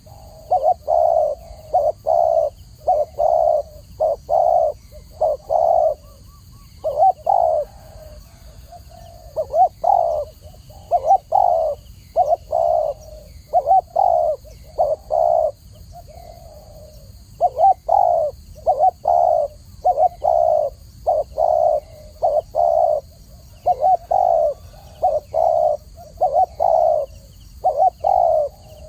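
Spotted dove (Spilopelia chinensis) cooing: repeated phrases of short, low coo notes with brief pauses between phrases.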